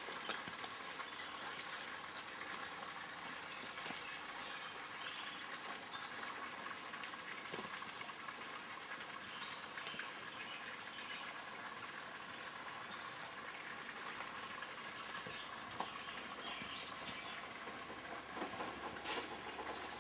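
Steady, high-pitched drone of insects, with small scattered chirps and ticks over it.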